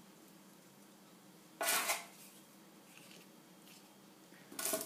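Biscuits handled on a porcelain plate: two brief clatters against the china, one about a second and a half in and one near the end, with quiet room tone between.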